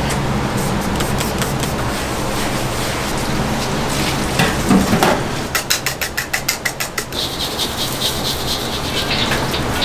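Commercial kitchen noise: a steady roar of gas burners and extraction under the clatter of utensils and knife taps, with a quick run of rapid clicks about halfway through. Near the end a steady hiss joins in as a wok works over a high gas flame.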